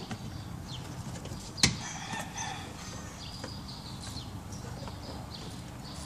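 Plastic dash trim being fitted by hand: one sharp click about a second and a half in, as a part snaps into place, then faint high squeaks and rustles of plastic being handled.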